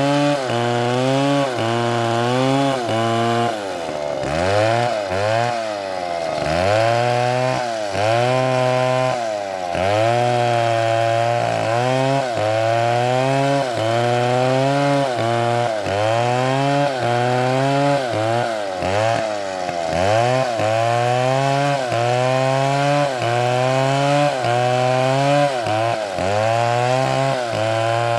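A STIHL chainsaw cutting through wood, running loud and continuous. Its engine pitch sags as the chain loads up in the cut and climbs back again, over and over, about every one to two seconds.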